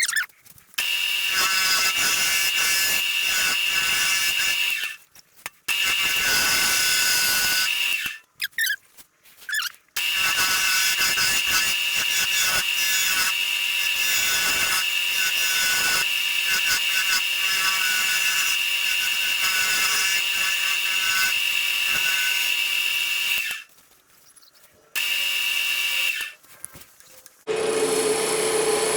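Wood lathe spinning a resinous fatwood pine blank while a turning chisel cuts it: a steady high-pitched whine with a dense hiss of cutting. It runs in several long stretches broken by brief near-silent gaps, and turns to a lower hum near the end.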